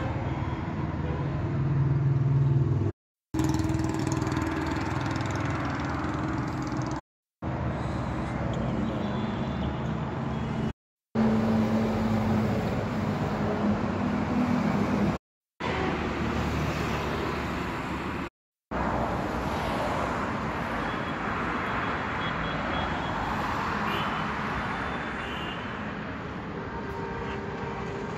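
A motor vehicle engine running steadily with a low hum, heard in several short clips joined by abrupt cuts that leave five brief gaps of silence. The hum's pitch shifts a little from clip to clip.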